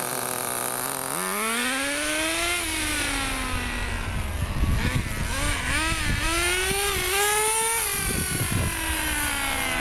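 Small two-stroke nitro engine (3cc, .18) of a 1:10 Thwarter RC monster truck. It idles steadily for about a second, then revs up as the truck pulls away. Its pitch then rises and falls several times as the throttle is worked.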